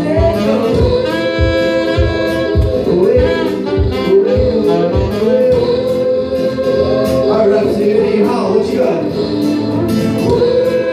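Live looped music: a steady beatbox beat about twice a second under layered vocals and a saxophone playing sustained melody lines.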